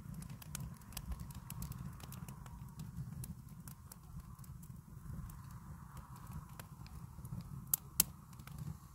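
Wood fire crackling in a steel fire pit: a steady scatter of small pops, with two sharper pops near the end, over a low rumble.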